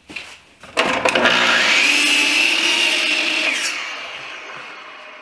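Electric miter saw starting up about a second in and crosscutting a pine 2x6 board. Near the end the trigger is released and the blade winds down with a falling whine that fades out.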